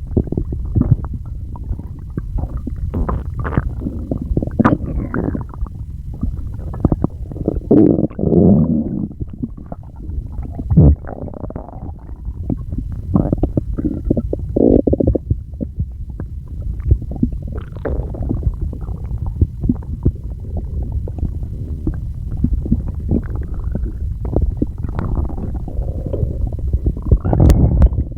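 A person's stomach gurgling and growling nonstop: a constant low rumble broken by many quick pops, with several longer, louder gurgles along the way.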